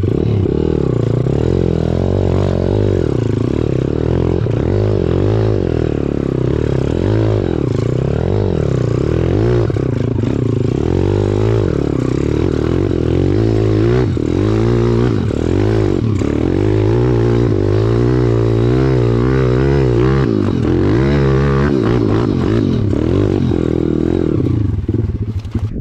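Pit bike's single-cylinder four-stroke engine revving hard up a steep dirt climb, its pitch rising and falling again and again as the throttle is worked.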